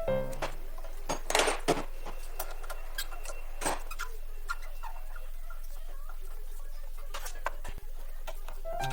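Hand tools and small pump parts being handled: scattered light clicks and taps, a few louder ones in the first two seconds, over a steady low hum.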